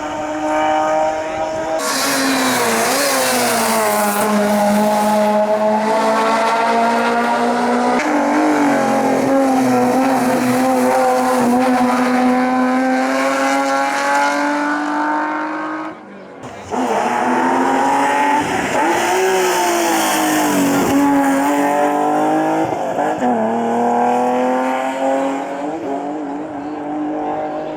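Racing car engines at full throttle on a hillclimb, pitch climbing and dropping back as the drivers change gear. There is a brief dip about halfway through, then another stretch of hard acceleration.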